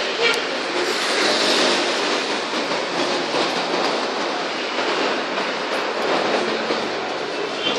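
Steady, loud rumble of passing vehicles, with a few faint clicks.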